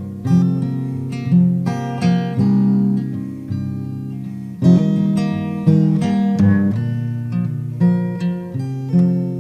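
Acoustic guitar playing an instrumental intro, chords struck about once a second and left to ring.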